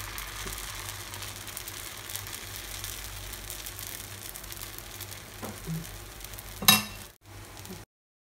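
Thin dosa batter sizzling and crackling on a hot cast-iron tawa as a ladle spreads it out in circles. Near the end a single sharp clink as a glass lid is set on the pan, after which the sound cuts off suddenly.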